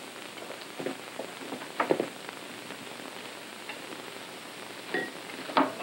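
Steady hiss of an old film soundtrack, with a few short soft scrapes and taps as a spatula cleans beaten egg white off electric mixer beaters over a mixing bowl; the loudest comes about two seconds in.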